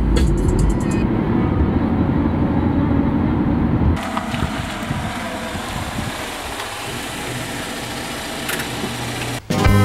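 Steady low rumble of road and engine noise inside a moving car. About four seconds in it drops suddenly to a quieter, even outdoor noise.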